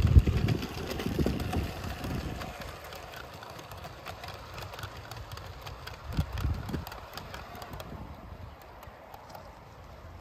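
A model steam locomotive and its coaches running on a garden railway track, a light scatter of clicks from the wheels and rails. Gusts of wind buffet the microphone, loudest at the start and again about six seconds in.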